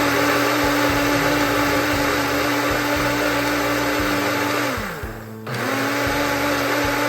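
Blender motor whipping a coffee, sugar and water mixture into dalgona foam. It runs steadily, spins down and stops about five seconds in, then starts again half a second later.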